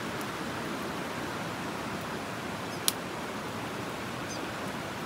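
Steady rushing of a river over stones, with a single sharp click, like a pop from the campfire, a little before three seconds in.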